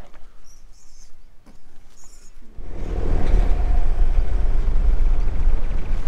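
Faint high chirps over quiet outdoor background, then about two and a half seconds in a loud, steady low rumble of a vehicle on the move begins.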